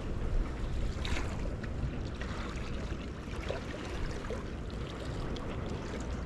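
Wind buffeting the microphone with a steady low rumble, over seawater washing against the shore, with a few faint clicks.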